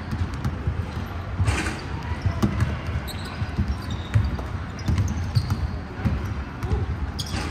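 Basketball bouncing on a hardwood court, with players' footsteps, in a large indoor gym: irregular low thuds, several a second.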